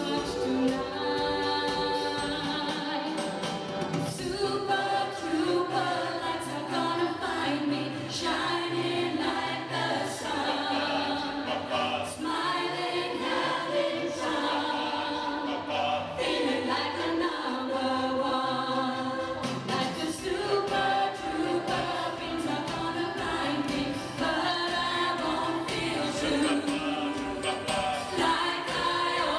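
A choir singing a 1970s pop song live, with instrumental accompaniment and a steady beat.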